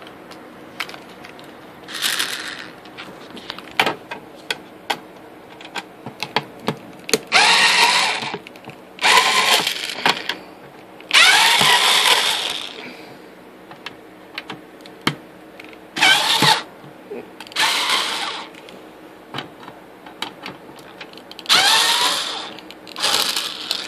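Screwdriver backing screws out of an old D-Link gateway's plastic case. There are about eight short bursts of grinding noise, several with a rising whine, and small clicks between them.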